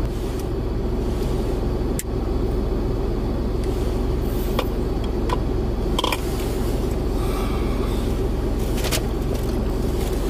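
Kei camper van's engine idling steadily, heard from inside the cabin, with a few light clicks over it.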